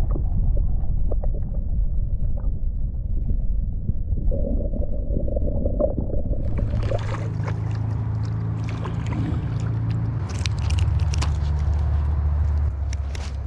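Creek water heard through a camera held underwater: a loud, muffled low rushing and gurgling. About halfway in, sharp crackling clicks join it.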